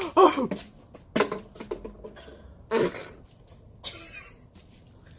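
A man's wordless vocal sounds building up to a sneeze: a loud wavering cry at the start, then two short sharp bursts of breath about a second and a half apart, and a fainter breathy hiss near the end.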